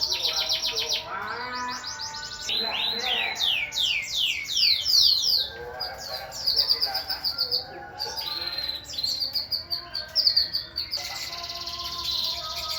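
Several birds in an aviary singing and chirping over one another: fast trills and runs of quick down-sweeping whistled notes, with quieter warbling beneath.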